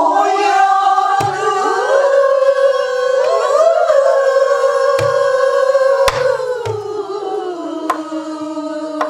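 Pansori singing: a woman's voice holds one long, wavering note that sinks lower after about six seconds, with a few sparse strokes on a buk barrel drum beneath it.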